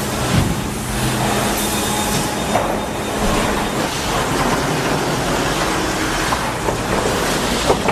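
Sawmill machinery running: a loud, dense mechanical clatter with a low hum that fades after the first couple of seconds, and a few sharp knocks.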